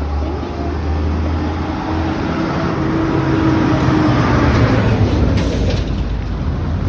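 Road traffic on a highway: a passing motor vehicle's engine and tyres over a steady low rumble, growing louder to a peak about four to five seconds in.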